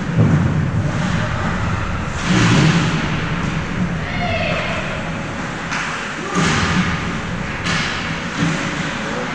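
Ice hockey game in a rink: heavy thuds against the boards several times, with a few sharp knocks in between and voices calling in the echoing arena.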